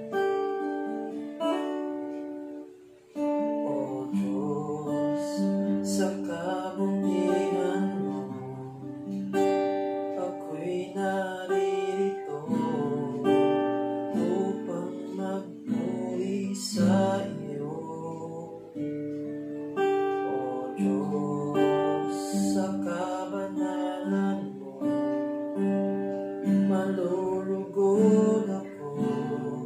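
Acoustic guitar played as accompaniment to a man singing a Tagalog worship song, with a short break in the music about three seconds in.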